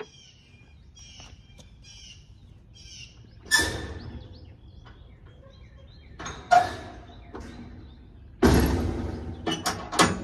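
Birds chirping, broken from about three and a half seconds in by several sudden thumps and rustles, the loudest near the end.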